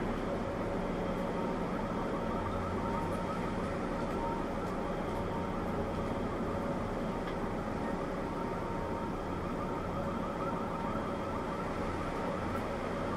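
Distant outdoor warning sirens sounding over a steady background hiss, with held tones and a fast, repeating warble.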